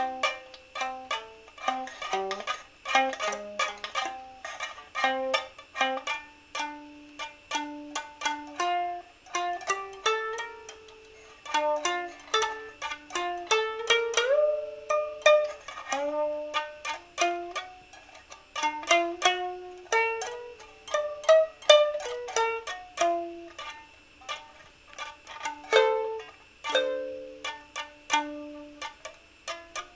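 Solo plucked string instrument playing an improvised melody: a quick, irregular run of single plucked notes that ring and die away, with a note sliding up in pitch about midway.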